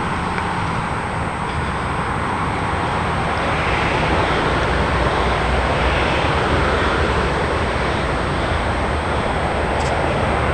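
Steady traffic noise from a nearby motorway, swelling and easing as vehicles pass.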